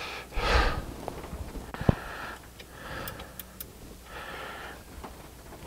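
Hand wrench ratcheting in short strokes on a stubborn exhaust manifold stud nut of a Ford 4.9 L inline six: four brief bursts of clicking about a second apart, with a few sharp metal clicks between them.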